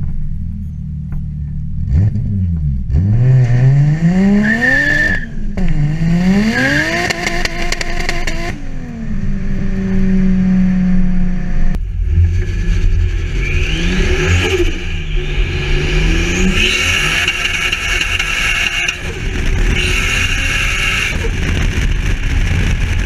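Toyota 2JZ-GTE inline-six with a single Garrett GT3582R turbo revving repeatedly, the pitch sweeping up and down, with a steady held pitch for a couple of seconds in the middle. In the second half a high turbo whistle sits over the engine as it revs again.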